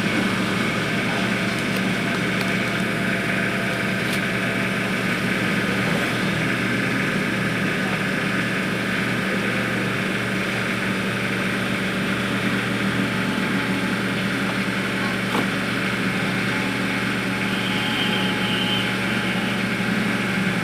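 A steady, unbroken machine hum with a low drone and a hiss above it.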